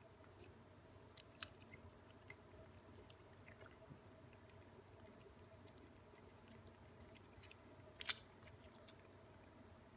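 Ragdoll cats licking a purée treat from a squeeze tube: faint, irregular wet lapping and tongue clicks, with one louder click about eight seconds in.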